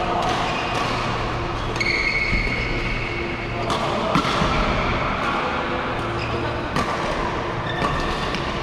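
Badminton play in a large echoing hall: sharp racket-on-shuttlecock hits every second or two, the loudest about four seconds in, with shoes squeaking on the court mats, over a steady hum and voices from other courts.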